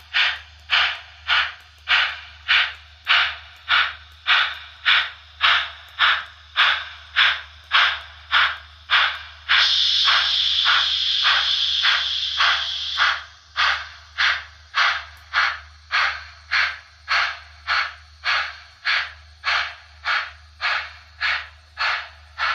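Model train locomotive's sound module playing rhythmic hissing chuffs, about two a second, over a steady low hum. About ten seconds in, the chuffs give way to a continuous hiss for about three seconds, then the chuffing resumes.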